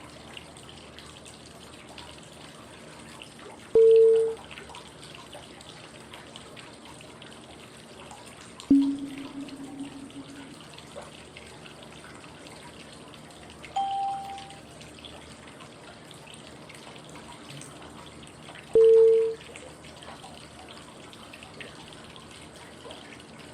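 Short cue tones every five seconds, stepping in turn through a high, a middle and a low pitch to mark the inhale, hold and exhale phases of 5-5-5 breathing, over a steady bed of running-water white noise. The low tone lasts longest.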